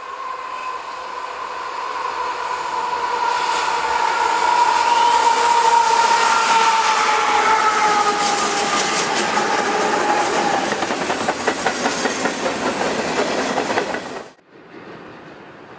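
CSX diesel freight train passing close by. The lead locomotive approaches with a steady whine that falls slowly in pitch as it goes by, then the freight cars' wheels clatter over the rail joints. The sound cuts off abruptly near the end to a quieter background.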